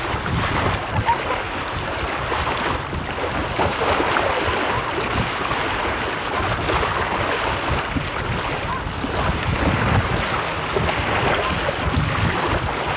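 Wind buffeting the microphone over a steady rush of moving water.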